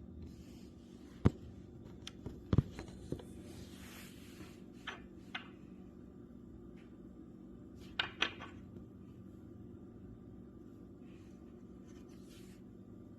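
Sharp knocks and clicks of coffee-table parts being pushed together and fastened with a cam lock: a single loud knock about a second in, two close knocks around two and a half seconds, a brief rustle near four seconds, and another pair of knocks around eight seconds.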